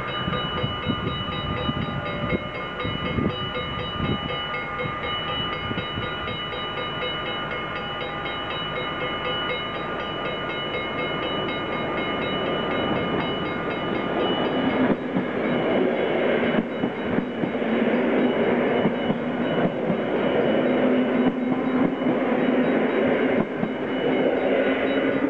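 Level-crossing bells ringing steadily. About fifteen seconds in, a Mat '64 electric train comes up and passes close by: a low hum from its motors rises slightly in pitch, and its wheels clatter over the rail joints.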